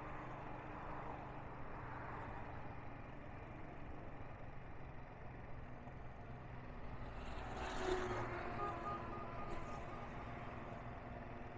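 Steady road and engine noise of a vehicle driving along a highway, heard from inside the cabin, with a brief louder rush of noise about eight seconds in.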